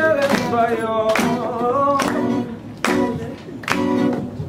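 A mixed group of young voices singing a melody together to an acoustic guitar. Sharp accents come about once a second under the singing.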